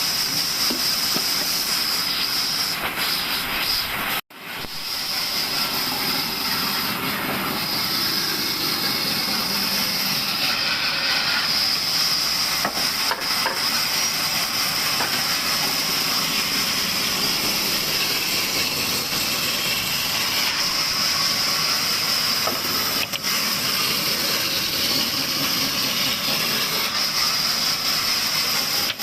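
Table sawmill running steadily, a continuous high whine over a hissing rush of noise as the saw cuts wood. The sound cuts out for an instant about four seconds in, then resumes.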